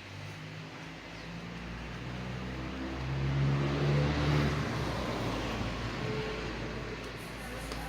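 A car engine running, swelling to its loudest about four seconds in and then easing off, like a car driving past.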